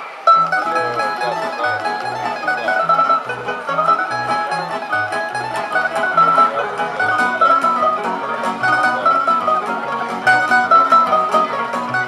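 Live folk dance music on plucked strings with a double bass, the bass notes keeping a steady, even beat under a bright plucked melody.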